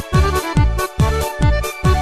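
Music with a steady electronic kick-drum beat, about two beats a second, under a melody.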